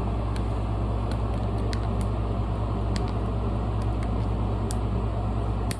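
A steady low rumble, with a few faint sharp clicks scattered through it.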